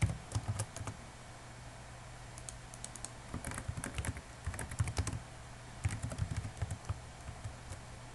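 Typing on a computer keyboard in short runs of keystrokes separated by pauses, over a faint steady low hum.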